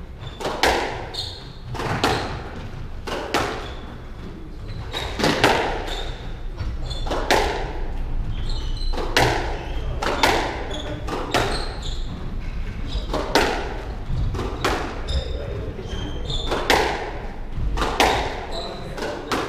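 Squash rally: the ball cracks off the rackets and the court walls about once a second, each hit echoing around the court, with short high squeaks of shoes on the wooden floor between hits.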